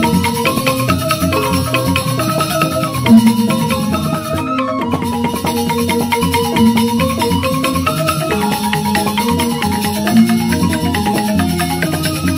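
Balinese gamelan-style music: mallet-struck xylophone-like instruments playing fast, repeating melodic patterns over a low pitched pulse.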